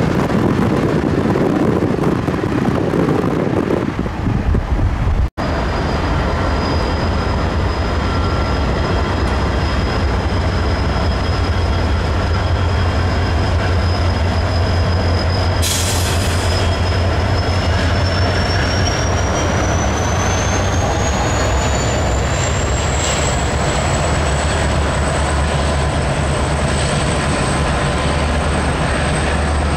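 Norfolk Southern freight train rolling past with a steady low rumble. A thin high squeal holds steady and then rises in pitch from about halfway through.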